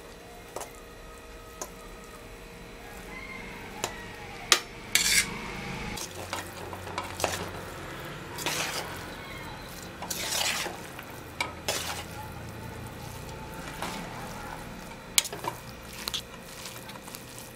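Metal spoon scraping and clinking against a stainless steel pot as cooked rice is stirred into tomato masala. The scrapes come at irregular intervals, with a couple of sharper knocks of spoon on pot.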